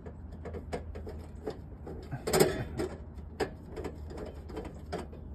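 Sheet-metal cover of an outdoor electric meter and main-breaker enclosure being handled and worked loose by gloved hands: scattered small clicks, taps and scrapes, with a louder knock a little before the middle, over a steady low rumble.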